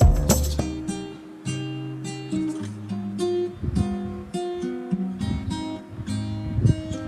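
Background music led by strummed acoustic guitar, after a burst of drum hits in the first half-second.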